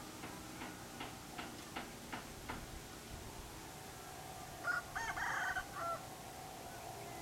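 A rooster crowing once, about a second long, a little past the middle. Before it comes a run of faint, evenly spaced clicks, over a faint steady hum.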